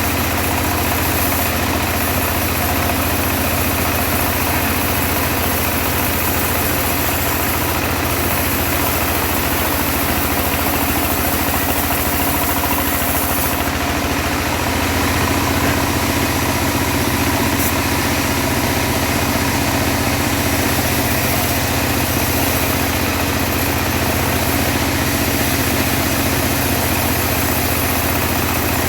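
Engine of a homemade portable bandsaw mill running steadily, the saw working a teak log; its tone shifts slightly and it gets a little louder about halfway through.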